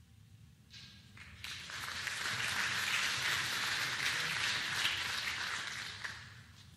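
Audience applauding. It rises quickly about a second and a half in, holds steady for about four seconds, then dies away near the end.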